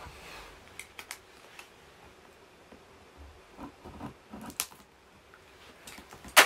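Small clicks and scraping as a small hand tool works at the seal of a cardboard product box. A sharp knock comes near the end and is the loudest sound.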